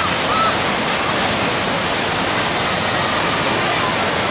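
River water rushing steadily over rocks: a loud, even rush.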